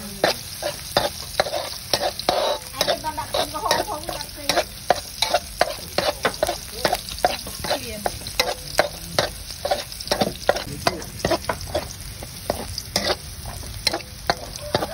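Metal spatula scraping and tapping against a metal wok in quick repeated strokes, about three a second, while shallots and garlic sizzle in hot oil.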